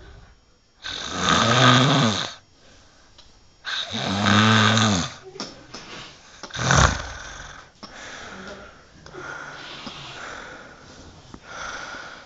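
A sleeping person snoring heavily: two long, loud snores of about a second and a half each, then a short sharp one. After that the breathing goes on more quietly.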